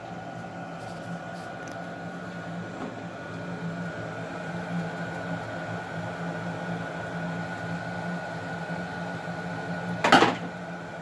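Baxi gas boiler running steadily after being switched on at full temperature, with a steady hum and a thin steady high tone. Its three-way valve has just been fitted with a new, tighter seal. About ten seconds in comes a short loud burst of noise.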